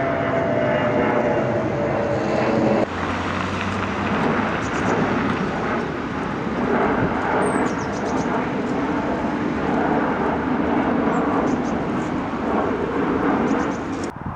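Twin-engine jet airliners climbing out after takeoff, their engines running loudly overhead. For the first three seconds a whining tone in the roar falls slightly in pitch. Then the sound changes abruptly to a broader, steady roar of a second jet climbing into low cloud.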